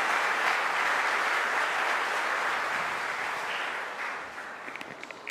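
Audience applauding, steady at first and then fading out over the last second or so, ending in a few scattered claps.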